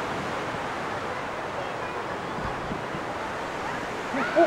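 Steady rushing outdoor ambience of surf and wind along the coastal forest. Near the end come a few short calls that rise and fall in pitch.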